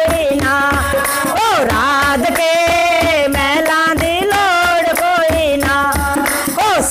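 A group of women singing a Radha-Krishna devotional bhajan together, holding long wavering notes, with hand-clapping keeping a steady beat.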